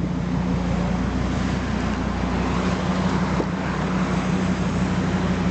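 Fiat Marea engine idling through a dual-pipe exhaust, a steady low rumble as it settles back to idle.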